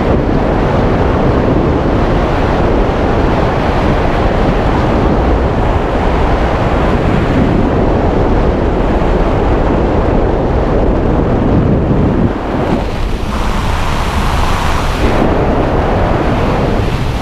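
Strong wind buffeting the microphone: a loud, steady rushing noise that eases briefly near the end.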